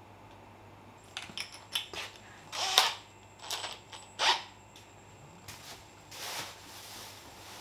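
Handling noises from a cordless drill and drill bit: a string of short, irregular clicks and knocks, the loudest about three seconds in.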